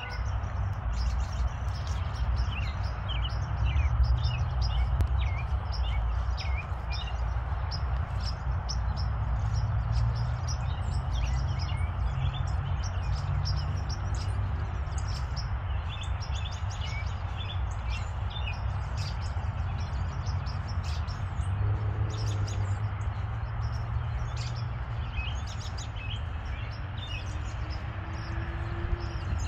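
Birds chirping in short, repeated clusters over a steady rushing noise and a low rumble.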